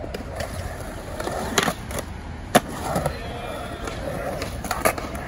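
Skateboard wheels rolling on a concrete skatepark bowl, a steady rumble broken by several sharp clacks of the board, the loudest about two and a half seconds in.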